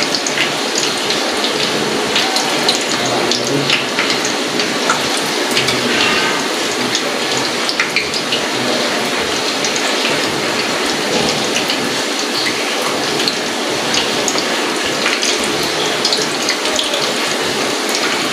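Gram-flour batter fritters deep-frying in hot oil in a karahi: a steady sizzle dotted with many small crackles and pops.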